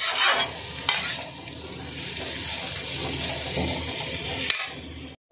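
Sliced bitter gourd and onion sizzling in oil in a metal kadhai while a steel spatula stirs them, with a few scrapes of the spatula against the pan, the loudest in the first second.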